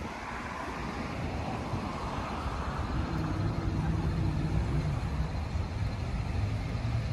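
City street traffic from the road alongside: a steady wash of passing cars, with a vehicle engine's low hum growing louder from about three seconds in.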